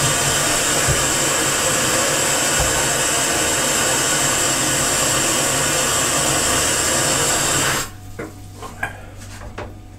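Cold water running hard from a kitchen tap into a plastic measuring jug as it fills; the tap is shut off about eight seconds in, followed by a few light knocks of the jug.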